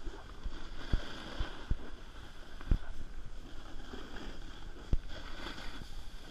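Snowboard sliding and carving on packed snow: a continuous scraping hiss of the board on the snow with wind on the microphone, broken by a few short low thumps, the loudest about three and five seconds in.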